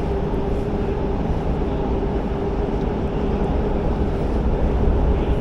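A steady motor-like drone with a constant hum that fades about halfway through, over a low rumble of wind on the microphone.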